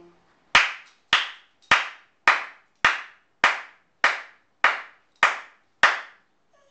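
Hands clapping slowly and evenly: ten sharp claps a little over half a second apart.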